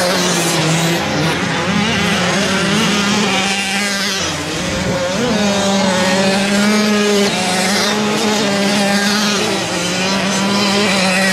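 Several motocross bikes racing, engines at high revs, their pitch rising and dropping again and again as the riders accelerate and shift, with more than one engine heard at once.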